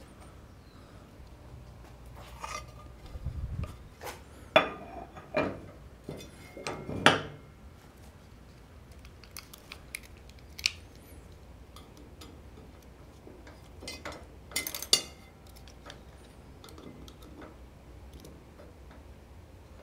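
Irregular metal clanks, knocks and clinks as a disc sander disc and its fittings are handled and mounted on the spindle of a 1954 Shopsmith Mark V. The loudest knocks come about four to seven seconds in and again around fifteen seconds.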